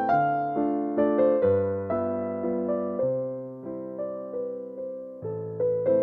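Background piano music: notes and chords struck about twice a second, each left to ring and fade.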